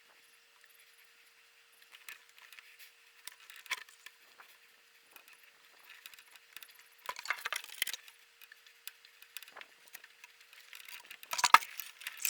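Faint, scattered clicks, knocks and rattles of hands handling objects. There is a louder scraping rustle about seven seconds in and a cluster of sharp clicks near the end.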